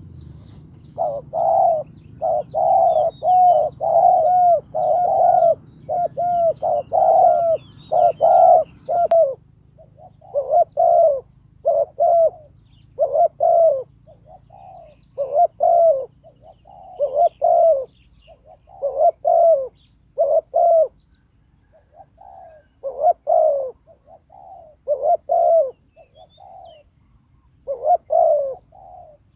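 Spotted dove cooing repeatedly, a decoy bird calling to lure wild doves. The coos come almost without a break for the first nine seconds, then in short phrases every second or two, with faint chirps of small birds in the background.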